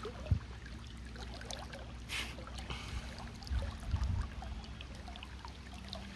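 Shallow river water trickling, with a short splash about two seconds in and dull low thumps near the middle.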